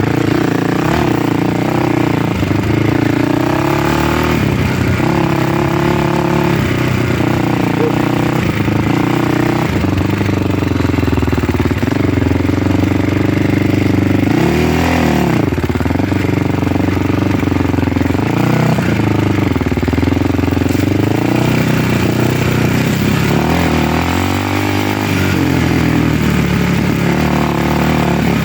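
Motor vehicle engine running under way, its pitch rising and falling as the throttle and speed change.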